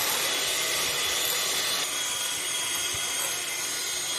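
Electric blender running steadily, mixing a cream, condensed milk and cocoa powder ice cream base, with a steady high whine over the motor noise.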